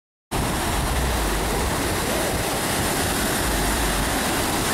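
Waves breaking and washing on a beach, with a heavy, uneven rumble of wind on the microphone. The sound cuts in suddenly after a moment of silence and then holds steady.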